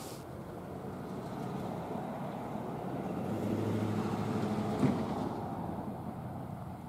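Loaded open-top hopper cars of a freight stone train rolling along the track, steel wheels on rail giving a steady rumble. A single sharp clack comes about five seconds in, and the rumble eases as the last car pulls away.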